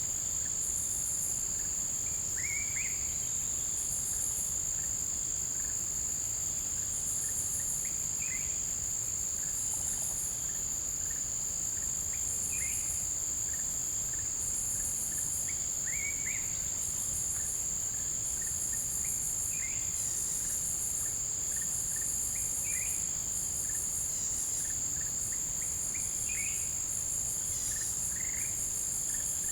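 Forest insect chorus: one insect trills in a steady, unbroken high tone while another calls above it in repeated pulsing bursts. A short rising chirp from another animal sounds every three to four seconds.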